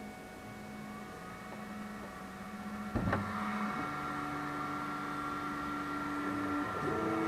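Flashforge Adventurer 3 3D printer's stepper motors whining as the print head moves, the pitch jumping to a new steady note twice, with a short click about three seconds in.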